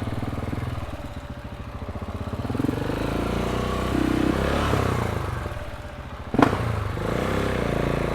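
KTM 690 SMC's single-cylinder engine running through its Akrapovic exhaust at idle, the revs rising and falling gently for a couple of seconds in the middle. A single sharp click about six seconds in.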